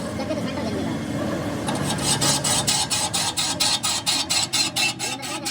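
A hand tool rasping back and forth in quick even strokes, about four a second, starting nearly two seconds in.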